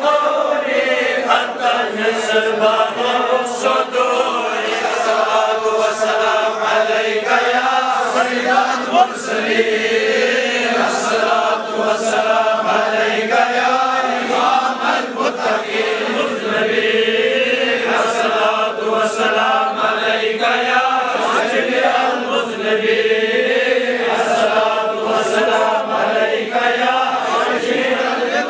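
A group of men chanting an Islamic devotional recitation together in long, wavering notes without a break.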